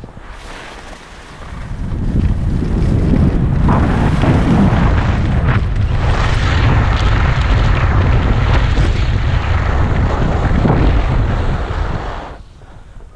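Heavy wind buffeting the camera's microphone, as on a fast run down a snow slope. The loud rush builds about two seconds in, holds steady, then falls away near the end.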